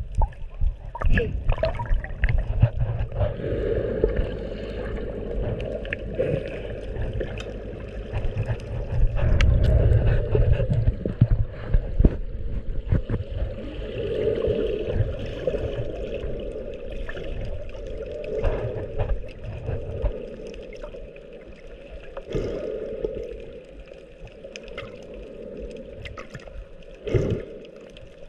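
Muffled water sloshing and gurgling, heard by a camera held underwater. There is a low rumble that is strongest in the first half and eases after about twenty seconds, with scattered small clicks.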